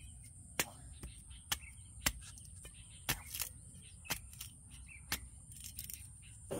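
A series of sharp knocks or taps, unevenly spaced at roughly one a second, with faint bird chirps in the background.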